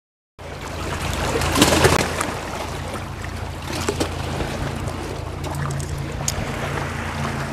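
Wind rushing over the microphone with water lapping against a wooden pier, and a few sharp knocks a second or two in.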